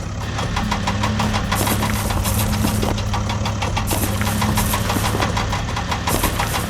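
An engine running steadily with a fast, even knocking chatter, like a diesel engine at idle.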